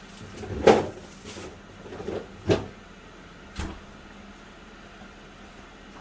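A fridge door being opened and shut, with three knocks: the loudest just under a second in, another about two and a half seconds in, and a lighter one about a second later.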